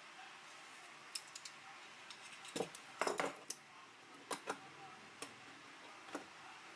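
A folding aluminium laptop stand being opened out by hand: its metal hinged arms click and clack as they swing and knock together, loudest in a quick cluster about three seconds in, then a few scattered clicks as it is set down on the desk.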